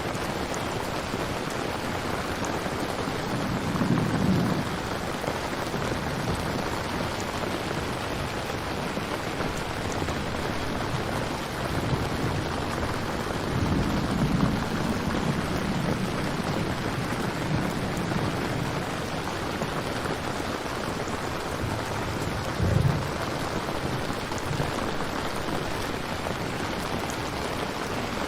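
Steady heavy rain, as a continuous hiss, with low rumbles of thunder swelling about four seconds in, again around fourteen seconds, and a short sharper one near the end.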